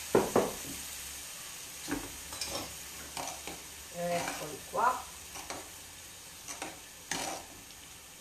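A pan of tomato and diced eggplant sauce sizzling steadily on a gas stove, with a run of clinks, knocks and scrapes of a metal utensil against the pots. The loudest knocks come just after the start, and more follow irregularly.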